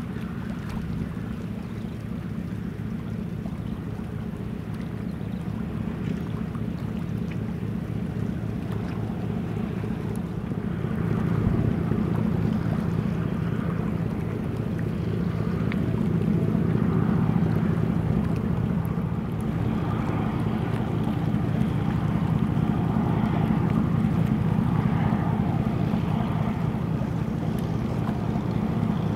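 Large container ship's diesel engine droning low and steady as it passes close, with the rush of water along its hull; the sound grows louder about eleven seconds in.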